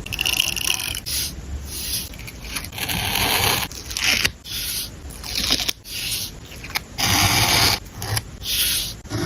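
Paper journaling materials being handled: a run of irregular scraping and rustling strokes, each about half a second to a second long, with short pauses between them.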